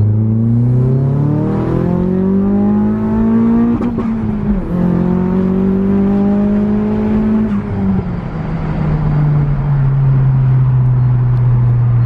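Nissan S15 Silvia's turbocharged SR20DET four-cylinder heard from inside the cabin, its revs climbing steadily as the car accelerates. The revs drop at a gear change about four and a half seconds in and climb again. Near eight seconds in they fall back and the engine settles into a steady cruise.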